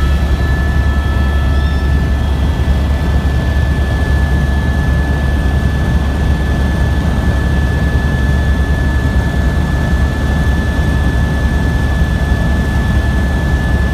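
Helicopter cabin noise in steady flight: a loud, constant low drone from the rotor and engine with a steady high whine on top.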